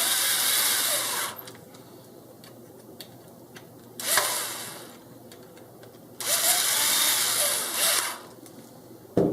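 Power screwdriver driving small M3 screws, running in three bursts: about a second and a half at the start, a short burst about four seconds in, and a longer run of nearly two seconds from about six seconds in. The motor's pitch rises and falls as each screw seats.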